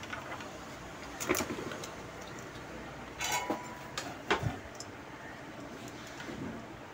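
A few light clicks and knocks as solder wire and a soldering iron are handled against a circuit board and its plastic case, in three short clusters about a second in, around three seconds in and just after four seconds.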